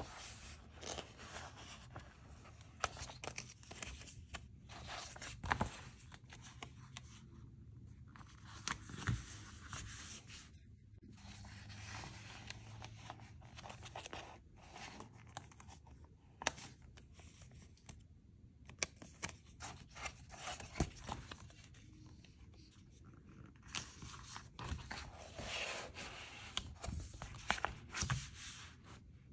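Glossy pages of a paperback sticker book being handled and turned by hand: irregular paper rustling and scraping, with sharp taps and flicks.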